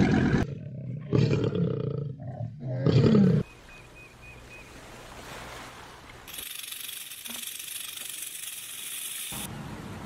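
An animal's deep growling roars, three of them in about the first three and a half seconds. After them a much quieter stretch follows, with a steady high hiss starting about six and a half seconds in.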